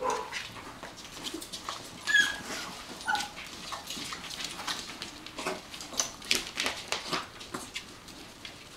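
Irish soft-coated wheaten terrier puppies whimpering and yipping in a few short, high calls as they crowd their standing mother to suckle, among many short clicks and scuffs.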